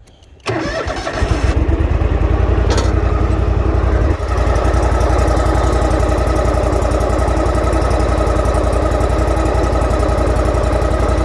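Toro Z Master 6000's 26.5 hp Kohler Command Pro EFI V-twin engine being started: the starter cranks briefly about half a second in, and the engine catches almost at once. It then settles into a steady, smooth idle with a brief dip in level about four seconds in.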